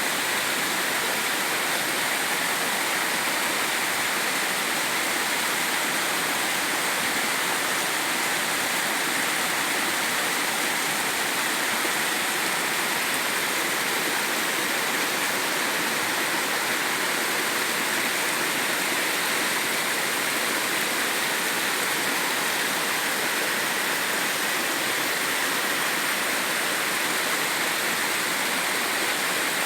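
Mountain stream water rushing and splashing over rocks, a steady, unbroken rush with no change in level.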